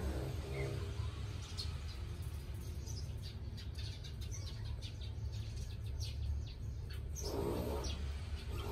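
Sphynx kitten suckling at its mother's teat: scattered quick, soft clicking and chirping sounds over a steady low rumble, with a short pitched sound near the end.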